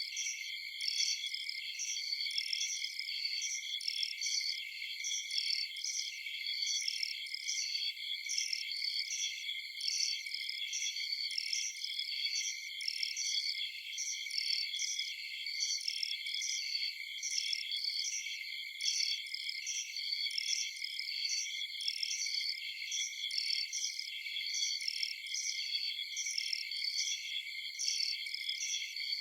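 Night insect chorus of crickets: a steady, dense high-pitched trilling with a regular, evenly repeating chirp rhythm layered on top, unchanging throughout.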